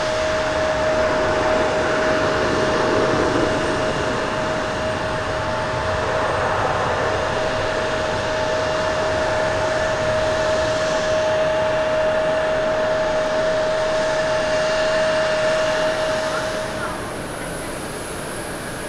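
Boeing 737-800's jet engines running at high power on the runway: a steady rushing noise with a strong, steady whine through it. Near the end the whine stops and gives way to the quieter engine noise of an Airbus A320 on approach.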